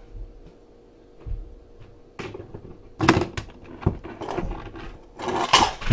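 A Coke can weighted with coins, tied to a muffin, being yanked by a dog: coins rattle and the can knocks and clatters against the kitchen counter. The knocks begin about two seconds in and are loudest near the end.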